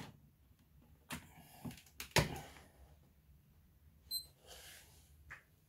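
Heat press being handled: a few clicks and knocks from its arm and platen, the loudest about two seconds in, then a short high electronic beep about four seconds in from its control box, and one more click near the end.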